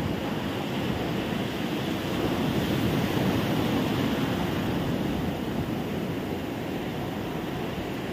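Sea surf on a beach, a steady rush of waves with low wind rumble on the microphone; the wash swells a couple of seconds in and eases again toward the end.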